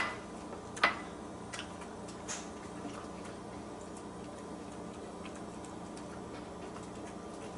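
Small dog eating from a dish: two sharp clicks at the start and about a second in, a few softer clicks over the next two seconds, then only faint ticking.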